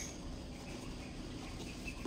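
Quiet rustling of the stuffing being pulled out of a leather handbag by hand, with a few faint high chirps.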